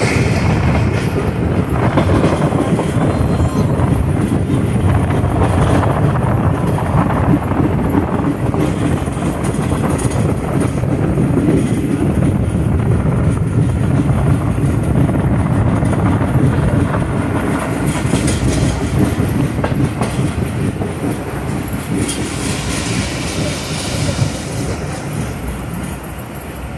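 Rail car train running along the track, heard from a window of the coach: a steady low rumble of wheels on the rails that eases slightly near the end.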